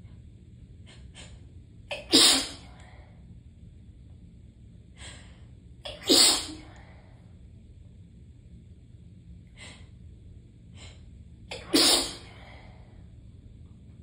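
A person sneezing three times in a sneezing fit, the sneezes about four to six seconds apart. Each is preceded by short, sharp catching in-breaths.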